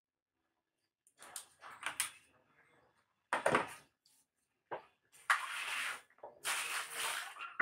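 Handling noises from wire-stripping work: a few clicks and a knock, the loudest about three and a half seconds in, then two stretches of rustling near the end.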